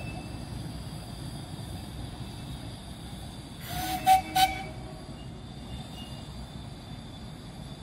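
Miniature 10¼-inch gauge steam locomotive's whistle giving two short toots about halfway through, wrapped in a brief hiss of steam.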